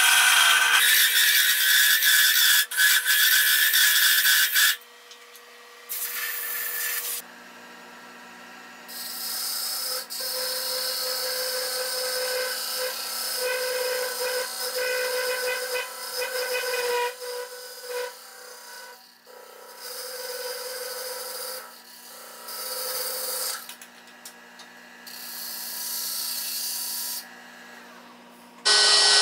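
Cherry wood spinning on a wood lathe as turning tools cut it, first hollowing inside the urn's opening and then shaping the outside. The cutting comes in stretches that start and stop, loudest in the first four seconds or so, over the steady hum of the lathe motor.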